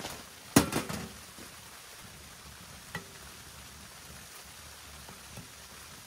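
Utensil knocking against a mixing bowl: a short ringing clatter about half a second in and a light tap near three seconds, over a faint steady hiss.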